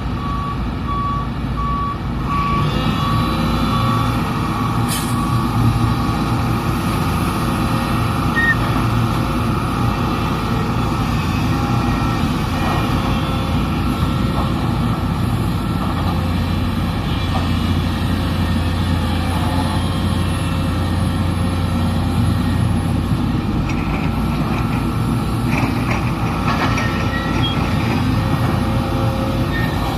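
A backup alarm beeps steadily for the first three seconds or so, over the steady running of heavy diesel machinery: the SANY SY330H excavator working as it loads dump trucks.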